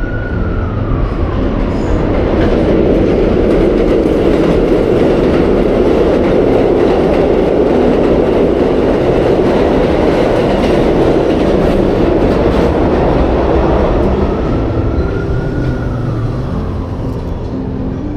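New York City subway train on the elevated track beside the platform: a loud, steady rush of rumbling wheel-and-rail noise that builds over the first couple of seconds and eases off after about fourteen seconds. A rising-and-falling whine is heard near the start and again near the end.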